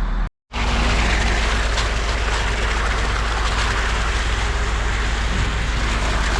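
Heavy diesel truck engine running steadily on a concrete job site, from the concrete pump or the mixer truck. The sound drops out briefly just under half a second in, then resumes unchanged.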